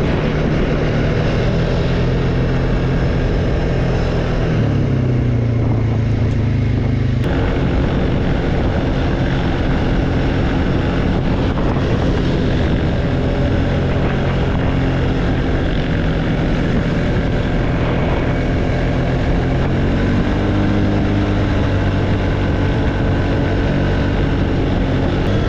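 ATV engine running under way on a trail ride, its pitch dropping about five seconds in, changing abruptly a couple of seconds later, and rising again about twenty seconds in as the machine speeds up.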